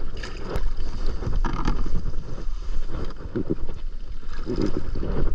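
Wind buffeting the microphone of a kayak-mounted action camera, with a few short splashes of water from the kayak paddle.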